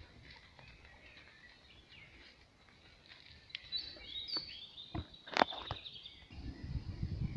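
Forest songbirds chirping and singing in short warbled phrases, louder in the second half. A few sharp clicks come about five seconds in, and a low rumble sets in near the end.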